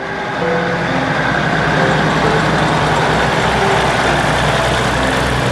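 Passenger train at a station platform, its diesel engine running with a steady low rumble under a wide, even hiss of noise.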